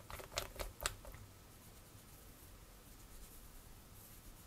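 Small parts being handled close up: four or five quick, light clicks and taps in the first second, then faint room noise.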